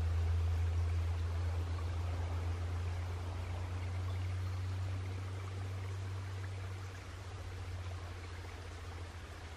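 Steady rush of a small woodland stream, under a louder low steady rumble that slowly fades over the seconds.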